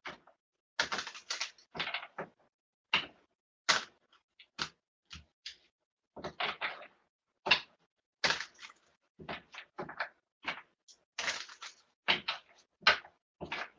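A deck of guidance cards being shuffled by hand: a string of short, irregular card flicks and slaps, with brief silent gaps between them.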